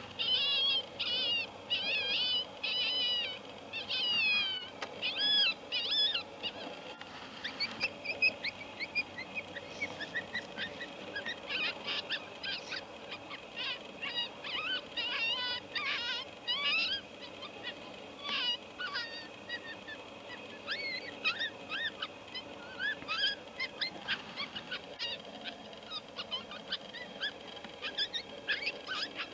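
A group of coyotes yipping and howling: quavering, warbling howls for the first several seconds, then a long run of quick, high yips and short rising and falling yelps.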